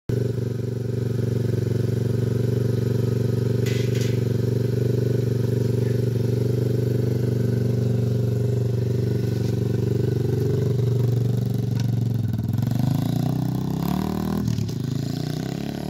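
TaoTao DB17 125cc pit bike's single-cylinder four-stroke engine idling steadily, then revving and pulling away, rising in pitch twice in the last few seconds.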